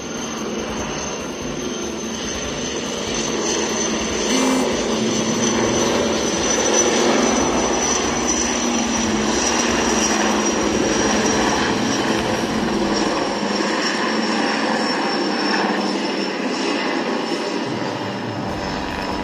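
Indian Air Force helicopter flying low overhead: steady rotor and engine noise with a thin, steady high whine. It grows louder a few seconds in as the helicopter passes close, then eases slightly near the end.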